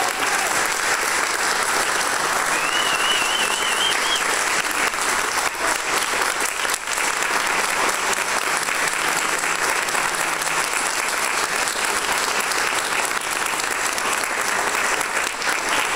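Audience applauding steadily, with a brief warbling whistle about three seconds in.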